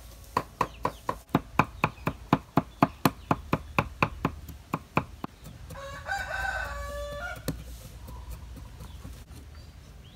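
Cleaver chopping on a round wooden chopping board in a fast, even rhythm of about five strokes a second, stopping about five seconds in. About a second later a rooster crows once, for roughly a second and a half.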